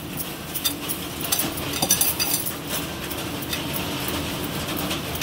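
A hand rubbing sugar and ghee together in a glass bowl: granular scraping of sugar against the glass, with frequent light clinks of glass from the bangles on the wrist and the bowl.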